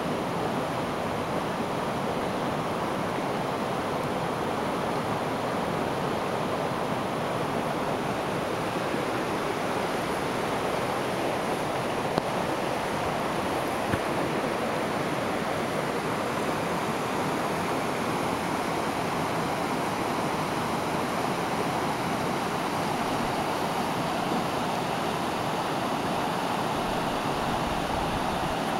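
Mountain river flowing over a rocky bed: a steady rush of water.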